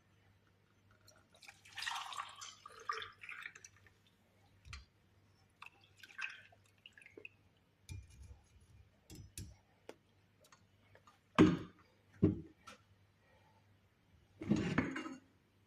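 Liquid being poured and dripping in short spells, with light clicks and knocks of kitchen utensils and containers; two sharp knocks two-thirds of the way through are the loudest.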